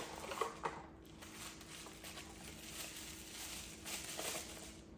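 Faint rustling and crinkling of packaging as a small accessory is unwrapped and handled, with a low steady hum underneath.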